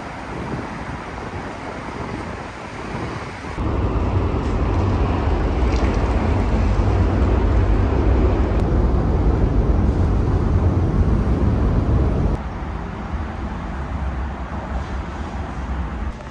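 Street ambience of road traffic: a steady noise with a louder low rumble through the middle that cuts off abruptly shortly before the end.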